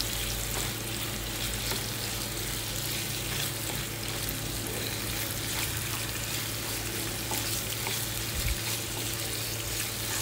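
Chicken pieces sizzling in oil in a nonstick wok as a spatula stirs and turns them, with scattered scrapes and clicks of the spatula against the pan. A steady low hum runs underneath.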